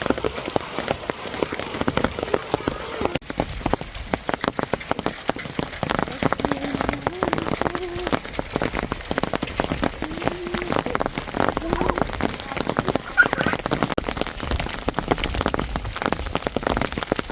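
Rain mixed with hailstones coming down hard: a dense, steady patter of sharp hits.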